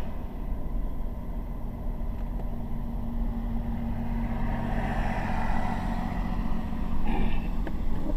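Car driving, heard from inside the cabin: a steady engine and road rumble that swells somewhat about halfway through.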